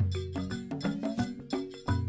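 Light background music: a quick run of short, pitched percussive notes, each fading fast.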